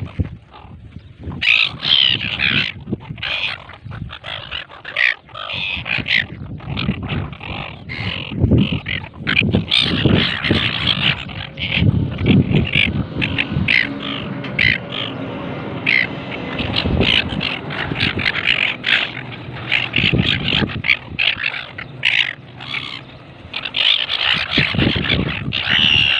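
A flock of gulls calling, with many short, harsh squawks overlapping almost continuously, over low rumbling bursts.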